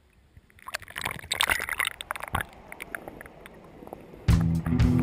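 Water sloshing and gurgling against a camera at the river surface as it dips under, with a flurry of bubbly clicks and splashes that ease off. Background music starts near the end.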